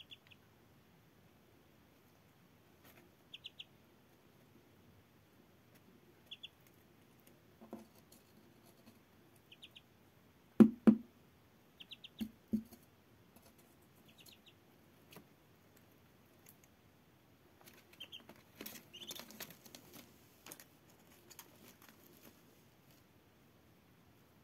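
Ducklings peeping softly, short trilled peeps every few seconds. A few dull thumps about halfway through are the loudest sounds, and there is a spell of rustling on newspaper near the end.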